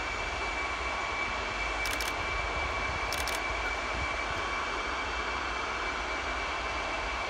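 Antonov An-225 Mriya's six turbofan engines running as the aircraft moves slowly on the runway. It is a steady, even jet whine over a low rumble.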